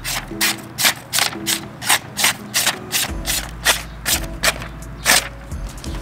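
Benchmade CLA 4300 knife blade slicing through a sheet of paper held up in the hand: a quick run of crisp, rasping cuts, about three a second.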